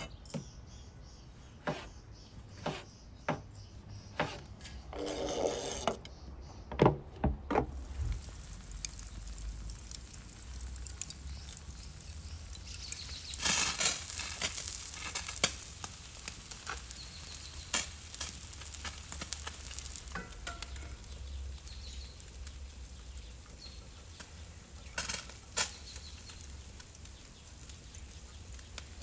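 A knife cutting tomatoes on a plastic cutting board, a sharp knock about once a second. Then fish on a vertical spit sizzles and crackles beside glowing charcoal, with a louder hiss of steam a little after the middle.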